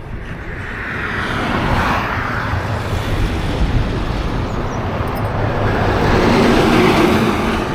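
Motorcycle riding on a highway: wind rushing over the microphone over the engine and road noise, getting louder over the first couple of seconds.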